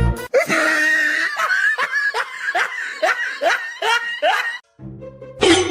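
A person laughing hard in a rhythmic run of about ten 'ha' bursts, then stopping, with one short loud burst near the end.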